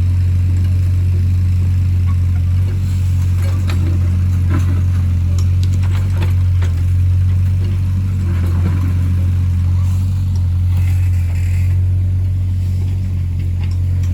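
Excavator's diesel engine running at a steady speed, with scattered knocks and clinks from the machine working.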